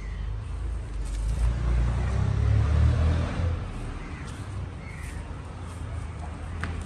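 Low rumble of a passing vehicle, swelling about two seconds in and fading after about three and a half seconds.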